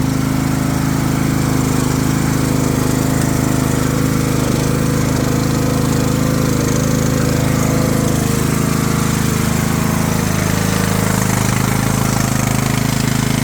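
Craftsman LT3000 riding lawnmower engine running steadily, just after a cold first start of the season on choke.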